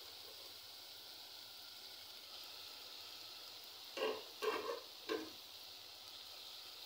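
A pan of fried tomato and onion with freshly added chopped mrenda (jute mallow) greens sizzling with a faint, steady hiss. Three short louder sounds come a little past the middle.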